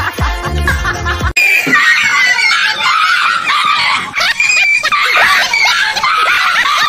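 Background music with a heavy beat for about a second. It cuts off abruptly and gives way to a run of high-pitched screaming cries mixed with laughter.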